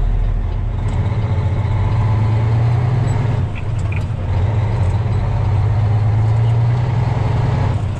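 Semi truck's diesel engine heard from inside the cab, pulling away and accelerating through a turn, with a steady low drone. The engine note dips briefly about three and a half seconds in, then picks up again.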